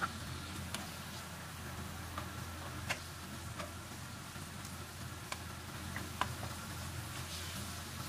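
Pork pieces frying faintly in a nonstick pan, with a plastic spoon clicking against the pan five or six times as it stirs them.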